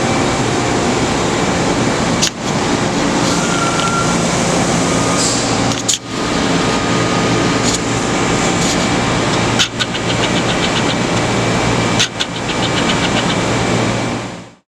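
Steady machinery hum of a powered-up CNC horizontal machining center and the shop around it, with a low drone under a dense whir. Brief dips break it about every three or four seconds, and it fades out near the end.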